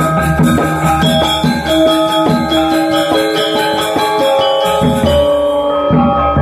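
Balinese gamelan gong ensemble playing a slow lelambatan piece: bronze-keyed metallophones struck with wooden mallets ring out sustained notes over low strokes that repeat at a regular pulse.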